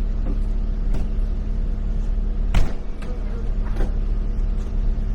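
Lorry diesel engine running with a steady low hum, heard from inside the cab, with a few sharp clicks and knocks over it, the loudest about two and a half seconds in.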